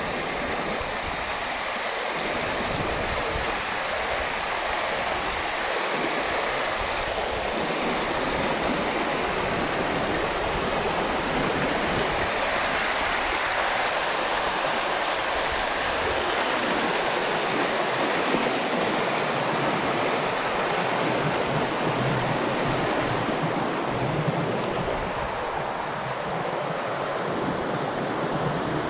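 Shallow river water rushing steadily over rocks and through small rapids.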